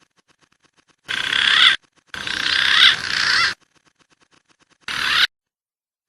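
Recorded wild pigeon calls from a bird-luring track: a short high call about a second in, a longer call in two parts from about two to three and a half seconds, and another short call near the end, with silence between them.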